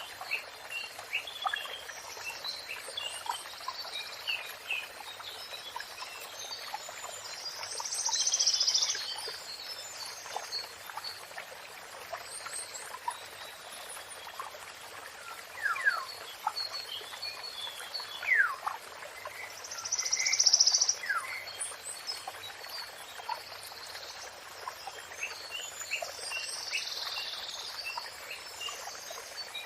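Songbirds singing and calling over a steady rush of flowing water, with several louder bursts of chatter and a few quick falling whistles.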